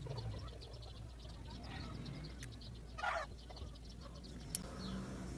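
Faint metallic ticking of a steel piston ring being eased by hand into its groove on a small motorcycle piston, with one sharp click about four and a half seconds in as the ring slips into place. A short call sounds about three seconds in, over a low steady hum.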